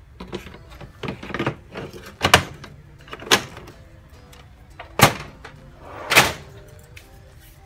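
Plastic rustling and a series of sharp plastic knocks and clicks as a waste toner collection container is pushed into a Sharp copier, ending about six seconds in with a loud thud as the copier's front cover is shut. Faint background music runs underneath.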